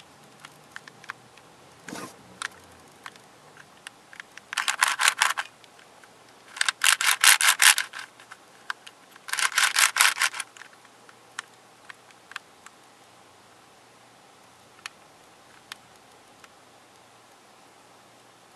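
Plastic pieces of a Square 2 twisty puzzle clicking as it is handled and its layers are twisted: scattered single clicks, then three bursts of rapid clicking about 5, 7 and 10 seconds in, then a few isolated clicks.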